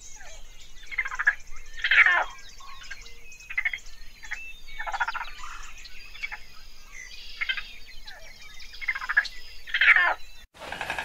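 Several raccoons chittering: a run of short, trilled calls that overlap irregularly, the loudest about two seconds in and again near the end.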